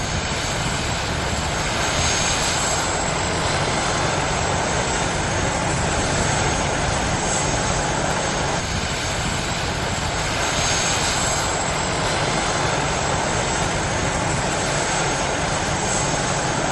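Helicopter flying overhead: its engine and rotors make a steady rushing noise with a thin high whine on top.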